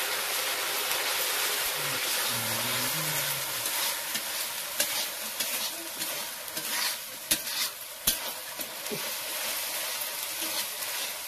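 Curry masala frying in a black iron kadai, sizzling steadily while a metal ladle stirs and scrapes it. Sharp clinks of the ladle against the pan come a few times in the second half.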